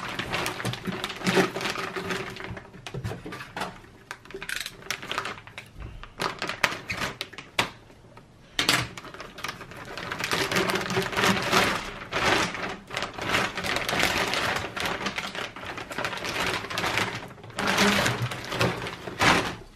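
Clear plastic wrapping crinkling and rustling as a plastic-bagged exhaust downpipe is handled and pulled about in a cardboard box, in a dense crackle with a short lull about eight seconds in.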